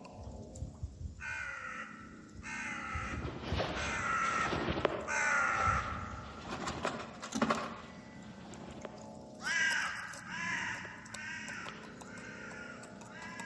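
Crows cawing: a string of harsh calls, several in a row, then a short lull and another run of calls near the end, over a faint steady low hum.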